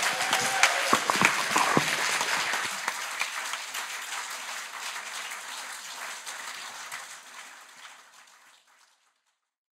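Audience applauding, the clapping dying away gradually to nothing near the end.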